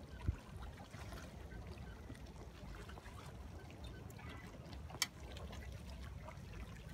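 Water trickling and lapping over a steady low rumble, with a dull thump about a quarter second in and a sharp click about five seconds in.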